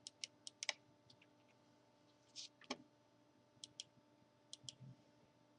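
Near silence broken by about ten faint, irregularly spaced clicks and ticks, with a brief soft rustle about two and a half seconds in.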